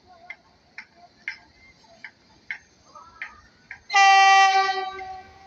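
Train horn giving one shrill blast about four seconds in, loudest at its onset and fading away over the next second or so. Before it, sharp clicks come about two a second.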